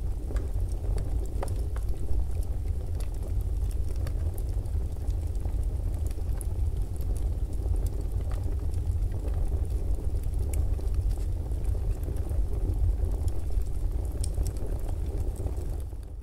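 Steady low rumbling noise with faint scattered crackles, fading out near the end.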